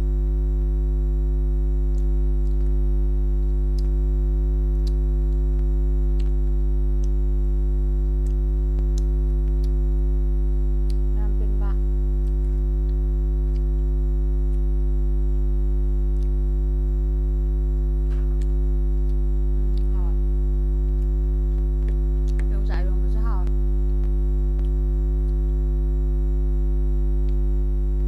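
Loud, unchanging electrical hum with a buzzy stack of overtones that swamps the recording, a sound fault in the audio. A few faint, brief wavering sounds surface through it about halfway through and again near the end.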